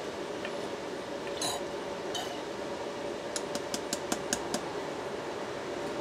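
Steady hum of a running shop fan, an old furnace blower, while PAG oil is poured through a plastic funnel into an A/C compressor. Two short hissing gurgles come early on, then a quick run of about eight light clicks a little past halfway.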